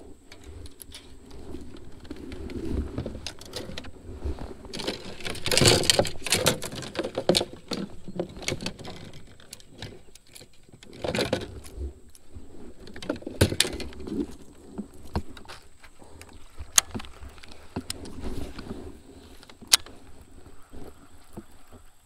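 Fishing gear being handled in a plastic kayak: rods and baitcasting reels knocking and scraping against the hull, with scattered sharp clicks. There is a louder rustling clatter about six seconds in and another about eleven seconds in.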